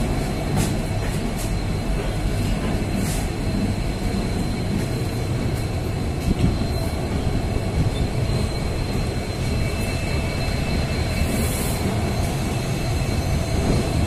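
Passenger train of ICF coaches running along the track, heard from an open coach doorway: a steady rumble of wheels on rail with a few light clicks.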